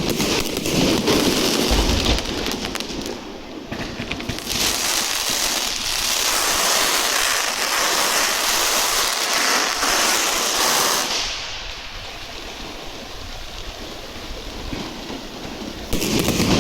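Fireworks crackling in a dense, rain-like hiss of rapid pops, easing off after about eleven seconds and swelling again near the end.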